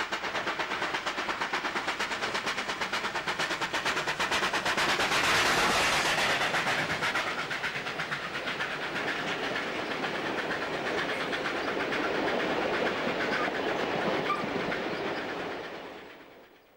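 New South Wales 38 class Pacific steam locomotive 3801 working hard past with a passenger train: fast, even exhaust beats, then the carriages running past, fading out near the end.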